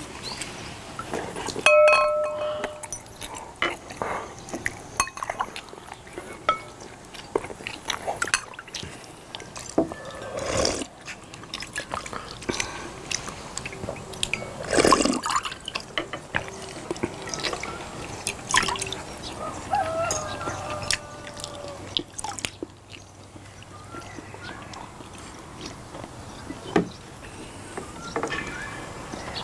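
Eating and drinking sounds: a stainless ladle scooping and pouring sujeonggwa (cinnamon punch) into glass bowls, with a ringing clink against the glass about two seconds in and many small taps of spoons and forks. The loudest sound is a slurp from drinking the punch straight from the bowl, about halfway through.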